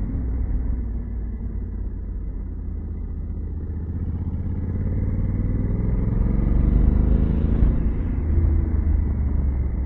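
2021 Honda Africa Twin's 1084 cc parallel-twin engine running under way, over a low steady rumble. The engine note rises for a few seconds about halfway through, then drops back near the end.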